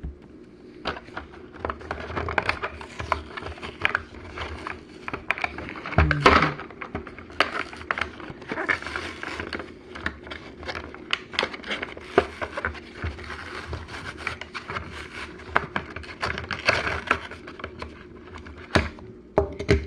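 Hands opening a Hot Wheels two-car pack: plastic blister and cardboard packaging crinkling and scraping, with many small clicks and a louder burst about six seconds in.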